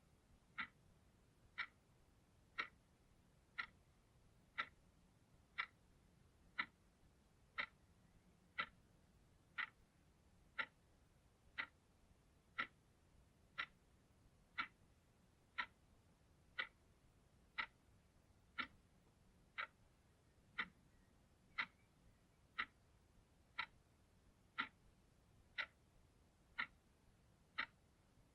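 Analog clock ticking steadily, one sharp, even tick a second, each tick alike.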